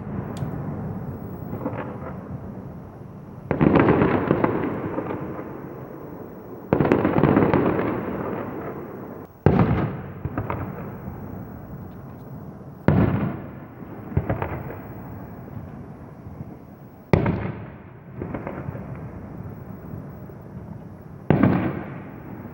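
Fireworks going off: a loud bang every three to four seconds, each followed by a long echoing rumble and crackle, with smaller pops in between.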